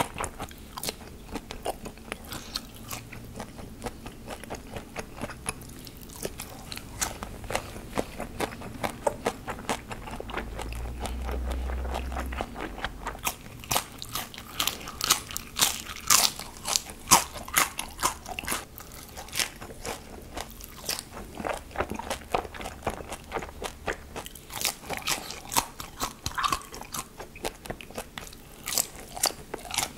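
Close-miked eating: bites into deep-fried acorn jelly crunching, followed by chewing, with the crisp crust giving quick clicking crunches that come thicker and louder in the second half.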